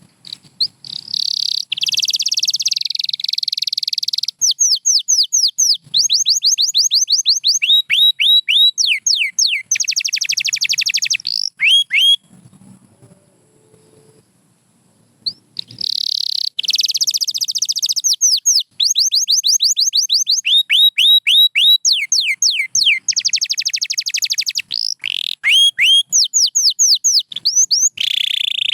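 Domestic canary singing two long song phrases of rapid trills, runs of quick falling notes repeated several times a second mixed with buzzy rolls, with a pause of about three seconds in the middle.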